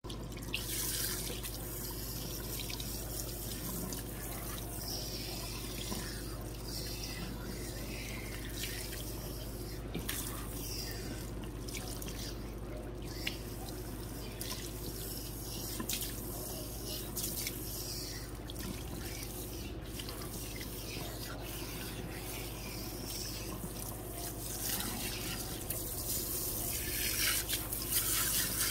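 Water from a salon shampoo-bowl spray hose running steadily over hair and splashing into the basin as relaxer is rinsed out. The spray gets louder near the end.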